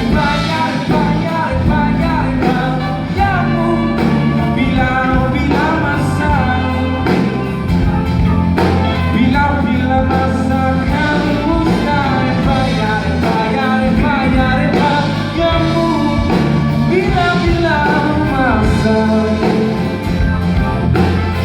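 Live rock band music: a full band playing, with a bending lead melody line over a steady bass and drum backing.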